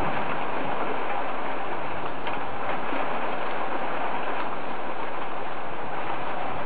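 Steady thunderstorm rain, an even hiss with a few faint drop ticks about two seconds in.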